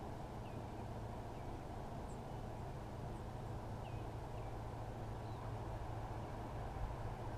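A steady low rumble with an even hum underneath, and a few faint, short bird chirps scattered through it.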